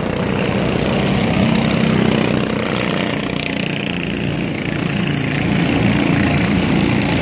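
Small engines of junior sprint race cars running steadily as the cars lap the dirt oval.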